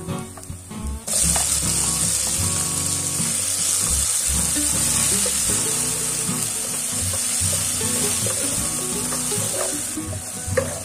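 Diced onion and chopped tomato sizzling in hot oil in a nonstick frying pan, stirred with a wooden spatula. The sizzle starts suddenly about a second in, as the tomato meets the hot oil, then runs steadily, with a sharp tap of the spatula near the end.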